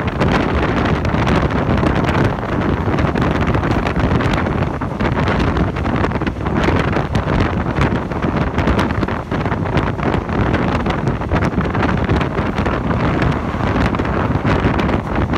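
Wind buffeting the microphone over the steady rumble of a moving vehicle.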